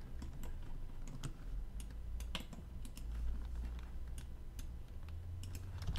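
Computer keyboard and mouse clicking: scattered, irregular clicks a few times a second over a low steady hum.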